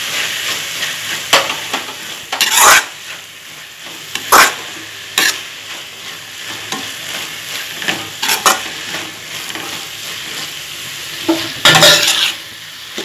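Chopped vegetables frying in a kadai with a steady sizzle while a spatula stirs them. The spatula scrapes and knocks against the pan in short sharp strokes; the loudest come about two and a half, four and a half and twelve seconds in.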